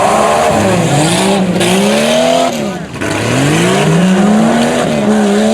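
Tough-truck engine revving hard under acceleration, its pitch climbing and falling as the driver works the throttle over the course. About two and a half seconds in it briefly drops away, then climbs again.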